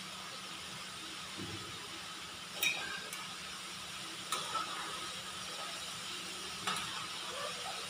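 A long metal spoon stirring food in a large aluminium pan, knocking against the pan in about four sharp clinks, over a steady hiss.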